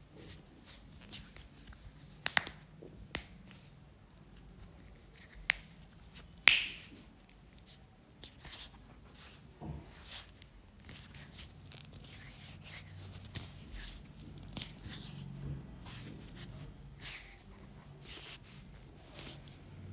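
Hands massaging a person's head and shoulders: rubbing and pressing on hair and skin, with several sharp clicks or snaps in the first seven seconds, the loudest about six and a half seconds in, then a run of softer, quicker rubbing strokes.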